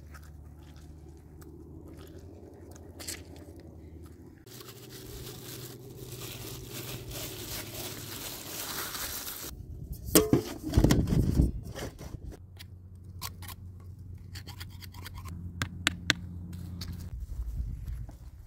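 Close-up food-preparation handling sounds: a lemon squeezed into a small metal bowl of spices, then rubbing and scraping around a marinated whole chicken on a metal tray, with a loud burst of low thumps and rubbing about ten seconds in, and scattered light clicks and scrapes afterwards.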